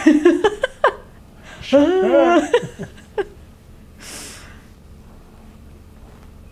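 A woman laughing in two short fits, each about a second long, then a breath out about four seconds in.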